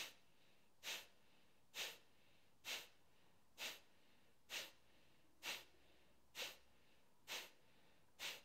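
A woman breathing rapidly through her nose, pushing out short, forceful exhales in a steady rhythm of about one puff a second; the fast belly-pumping breath of a breathwork exercise.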